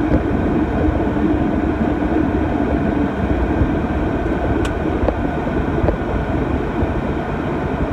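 Beechcraft King Air 200's twin Pratt & Whitney PT6A turboprops and propellers running at low power, heard from inside the cockpit, with a steady low rumble as the aircraft rolls out after landing and turns off the runway. A humming tone in the engine noise fades about three seconds in.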